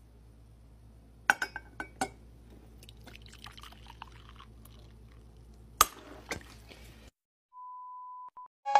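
Glassware clinking and liquid being poured into a glass bowl, with a few sharp knocks. Near the end a steady beep tone plays over colour bars, just before music starts.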